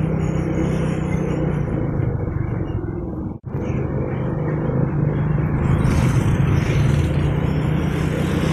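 Motorcycle engine running steadily while riding, with a low, even hum. The sound drops out for an instant a little over three seconds in, and a hiss of wind and road noise grows louder from about six seconds on.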